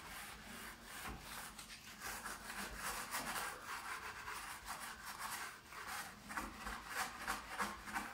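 Sponge scrubbing a foam-covered baking tray with light, quick back-and-forth strokes, a wet rubbing that grows stronger near the end; the foaming cleaner has loosened the burnt-on grime being worked off.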